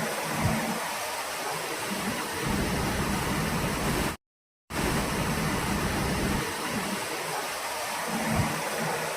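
Steady rushing of flowing water, an even hiss with a churning low end. About four seconds in the sound cuts out completely for half a second, then comes back.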